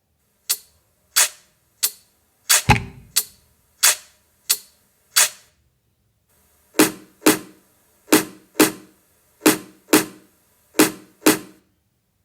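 Sparse drum hits from a reggaeton-pop backing track: sharp, cracking percussion strokes spaced roughly half a second to a second apart, one with a deep kick-drum thump under it. Midway the hits stop for about a second, then start again.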